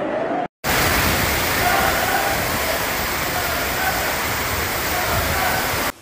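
Floodwater rushing and pouring in a loud, steady torrent, with faint voices of people shouting underneath. A brief storm-noise section cuts out about half a second in, just before the rushing starts.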